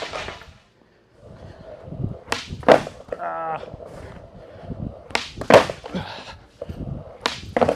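Skateboard wheels rolling on a smooth concrete floor, with sharp cracks of the tail popping and the board slapping down, in pairs about two and five seconds in and once more near the end. These are pop shove-it attempts, and the board rolls off on a missed landing.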